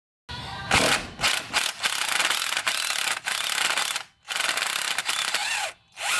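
Cordless power drill with a socket spinning out the small bolts of a driveshaft flange: a long run of about four seconds, a brief stop, a second run of about a second and a half, then a short burst at the end.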